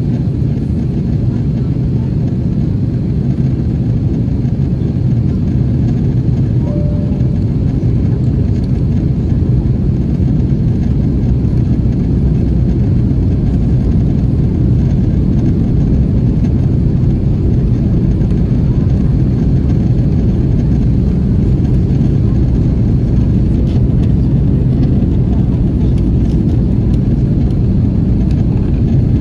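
Steady roar of an Airbus A330-300's engines and airflow heard inside the passenger cabin during the descent, a low, even rumble that does not change.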